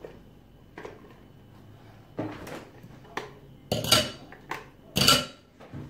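Kitchen utensils and dishes clattering: a few scattered knocks, the two loudest about four and five seconds in, each with a brief ring.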